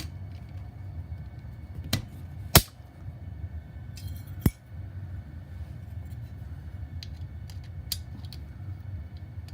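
A few sharp, separate clicks and clinks of metal retaining clips being fitted onto a washing machine's water pump, the loudest about two and a half seconds in, over a steady low hum.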